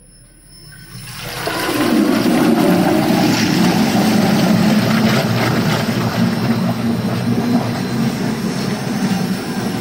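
Homogenizer of a stainless steel vacuum emulsifying mixer starting up about a second in, its motor hum and the water in the tank churning and splashing building up over a second to a loud, steady rush that eases slightly near the end.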